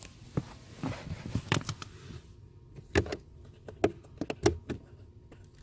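Plastic scraping, then a string of sharp clicks and knocks: the clips on a car's cabin air filter access cover being pushed up and the plastic cover worked forward by hand.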